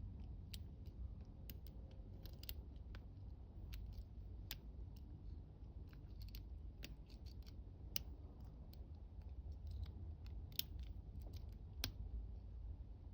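Lock pick and tension wrench working the pins of a Sinner challenge lock: faint, scattered metallic clicks and scratches at irregular intervals, over a low steady hum.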